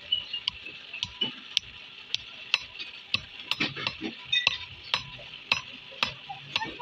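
Hand hammer striking red-hot steel held in tongs on a steel anvil block, about two blows a second, some with a short metallic ring, over a steady hiss from the forge fire.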